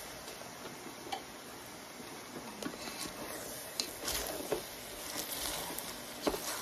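Wooden spoon stirring small pastina pasta with cooked escarole and olive oil in a large metal pot: soft wet stirring with irregular light knocks and scrapes of the spoon against the pot, more frequent in the second half.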